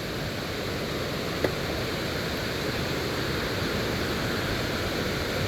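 Water pouring over a small dam spillway: a steady rush of falling water. A single faint click about a second and a half in.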